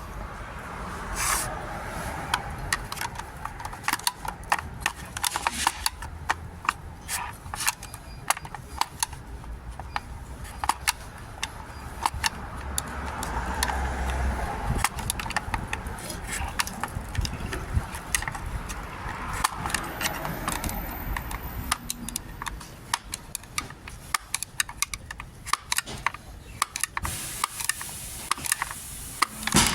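Metal tools and parts clinking, clicking and rattling in irregular sharp knocks during hands-on repair work on a car's parking brake.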